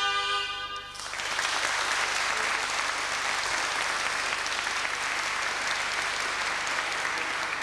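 Zampogna bagpipe and shawms hold a final chord that cuts off about a second in. The audience then applauds steadily.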